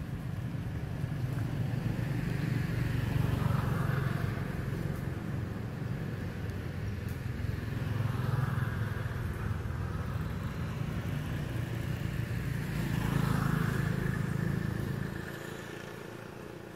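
Motor vehicles passing: a low engine and road rumble swells and fades about three times, then drops away near the end.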